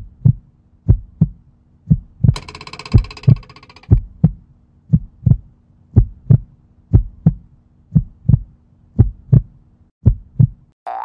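Heartbeat sound effect: paired low thumps (lub-dub) repeating steadily about once a second over a faint low drone. There is a brief hissing swell about two seconds in, and the beats stop just before the end.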